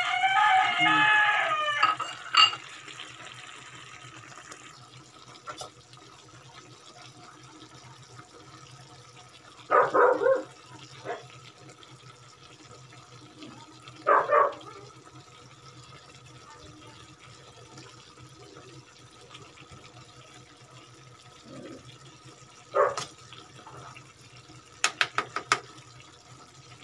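Chicken adobo simmering in a wok with a steady low bubbling hiss, and a metal spatula clicking against the wok once and then several times quickly near the end. Louder short sounds with a wavering pitch break in at the very start and twice in the middle.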